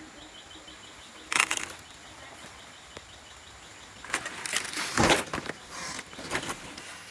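Short bursts of rustling and brushing: one sharp burst about a second in, then a cluster of several bursts from about four seconds to six and a half, over a faint steady background hum.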